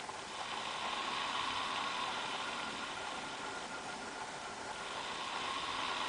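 Cooling fan of an Acer Aspire 5755G laptop blowing out through the side vent: a steady whoosh with a faint whine in it, easing slightly in the middle and rising again near the end. The fan noise is excessive, which the owner takes for a defect.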